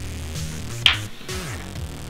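Electronic background music with a deep bass that slides down in pitch, and a sharp hit about a second in.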